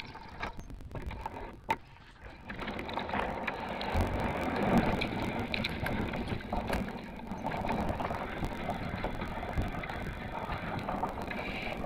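Electric fat bike riding along a trail: tyre and ride noise with scattered clicks and rattles. The noise swells into a steady rumble about two and a half seconds in.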